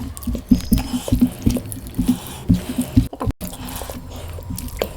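Close-miked wet eating sounds: chewing and lip-smacking on mutton curry and rice, a quick irregular string of wet clicks and soft thumps. The sound breaks off briefly a little past the middle.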